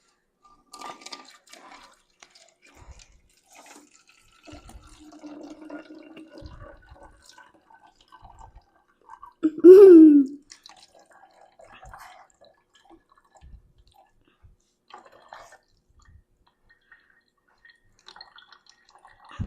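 Hydrogen peroxide being poured and dripping into a bottle, with small handling sounds. About halfway through, a short, loud vocal cry rises and falls in pitch.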